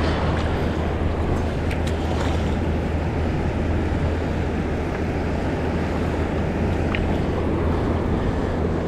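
Steady rush of ocean surf on the beach, with wind rumbling on the microphone and a few faint ticks.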